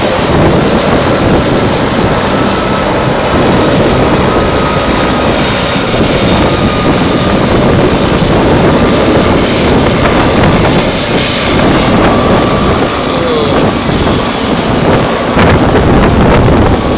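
Helicopter turbine engine and rotor running steadily on the ground after landing, with a faint steady whine, mixed with wind buffeting the microphone.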